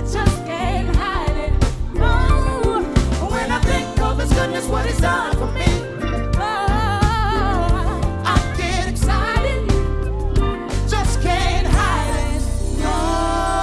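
Gospel-style song: singing over a band with a steady beat and heavy bass, ending on a long held vocal note over a sustained chord.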